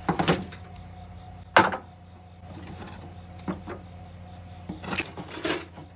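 A handful of sharp clanks and knocks from mower parts and hand tools being handled during teardown, the loudest about a second and a half in, over a steady low hum.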